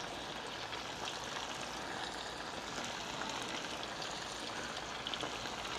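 Marinated chicken pieces deep-frying in hot oil: a steady sizzle with faint scattered crackles.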